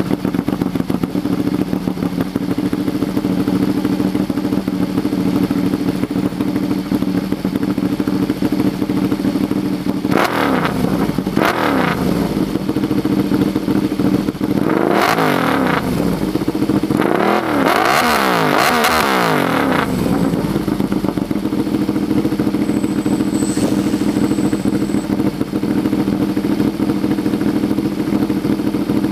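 Ducati Panigale 1199 S's Superquadro V-twin through an Austin Racing full exhaust, idling steadily just after start-up. About ten seconds in it is blipped twice, revved again at about fifteen seconds and given a quick run of revs a few seconds later before settling back to idle.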